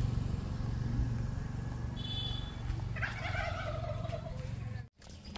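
Low, steady engine hum, with a short high chirp about two seconds in and a wavering animal call a second later; the sound cuts out abruptly near the end.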